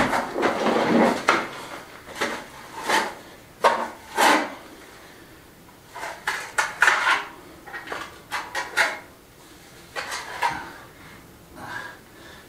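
A trowel scooping lime mortar from a plastic builder's bucket and scraping it onto the base of a wall: irregular scrapes and clacks, with a short lull about halfway through.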